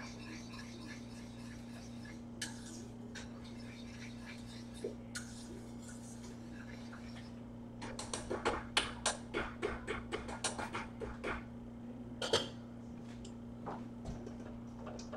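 A kitchen utensil clicking and tapping against a pan on the stove in quick succession from about halfway through, with one louder knock a little later, over a steady low hum.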